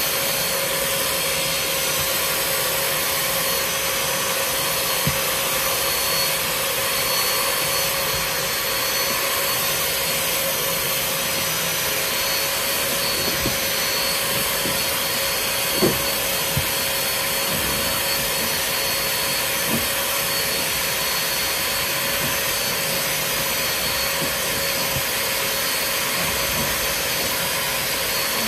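Portable carpet extractor's vacuum motor running steadily with a constant hum and a faint high whine, as its hand nozzle is worked over car carpet to shampoo and suck up the dirty water. A few light knocks from the nozzle are heard along the way.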